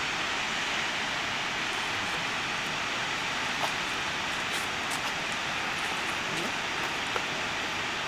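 Steady rushing hiss of a waterfall heard from a distance across a gully, with a few faint ticks.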